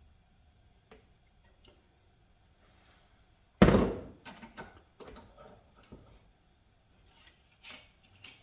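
Workshop tool handling at a bench vise while a fitting is wrenched in: one sharp, loud knock about three and a half seconds in, then several lighter clicks and knocks.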